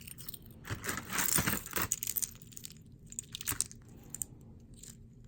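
Small pieces of costume jewelry clinking and rattling as they are handled. There is a longer jangling clatter about a second in, then a few light clicks.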